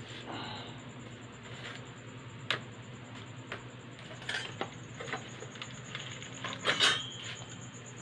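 Scattered light clicks and clatters of eggs, cardboard egg trays and small objects being handled at a homemade incubator, over a steady low hum. The loudest clatter, with a brief ringing clink, comes near the end.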